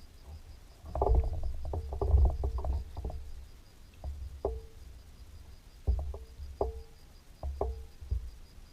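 Irregular hollow knocks and thumps on a boat, in quick clusters during the first few seconds and then a few single knocks, each ringing briefly.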